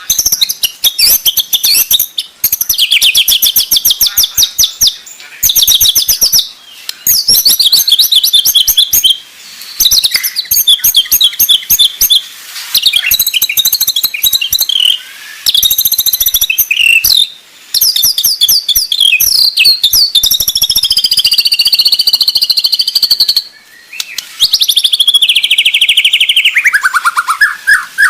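White-rumped shama (murai batu) song: loud phrases of fast, sharp repeated high notes, one after another with brief pauses. Near the end a rapid trill slides steadily down in pitch.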